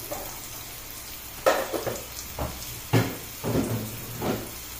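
Onions frying in coconut oil, sizzling in the pan while being stirred, with several sudden scrapes and knocks against the pan.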